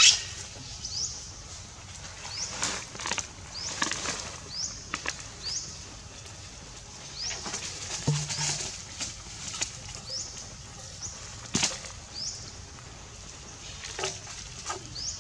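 A bird repeats a short, high, upward-flicking chirp every second or so, over rustling and scattered sharp knocks from young macaques climbing a metal frame and gnawing a corn cob.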